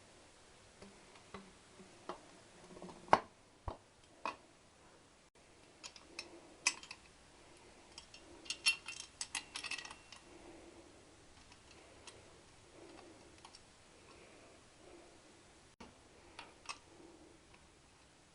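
Scattered metallic clicks and taps of exhaust clamp hardware being handled and fitted by hand, with a quick run of clicks about halfway through.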